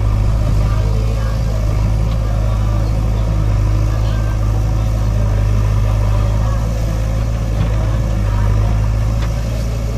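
Diesel engine of a JCB backhoe loader running steadily as its backhoe digs soil and loads it into a tractor trolley, a deep even drone that does not rise or fall.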